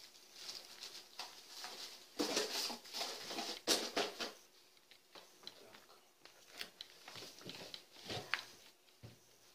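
Clear plastic packaging crinkling and rustling as it is handled, with scattered light clicks and knocks; loudest about two to four seconds in.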